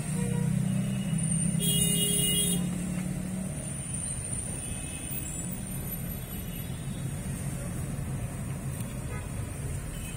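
Steady low drone of a car running, heard from inside the cabin, louder for the first few seconds and then easing off. A short pitched sound cuts through about two seconds in.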